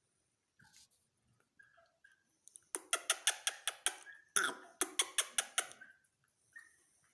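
Gray francolin calling: two quick runs of rapid repeated notes, about five a second, the second run starting loudest. Faint short chirps come before and after.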